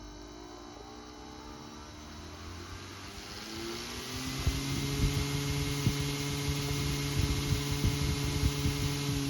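Overdriven shaded pole electric motor, run at double voltage and 250% of its normal supply frequency, humming louder and rising in pitch about three seconds in, then holding a steady industrial-sounding hum. Irregular rattling knocks from the toy wheel it drives run alongside.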